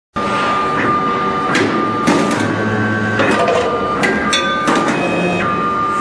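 Automatic wire stripping and cutting machine running: a steady high motor whine and a low hum, with a sharp clack from the cutter head every half second to second as the belt-driven feed wheels advance the wire and the blades cut and strip.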